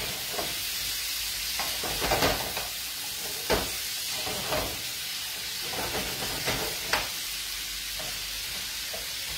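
Prawns frying in a pan with a steady sizzle, while a wooden spoon stirring them knocks against the pan several times.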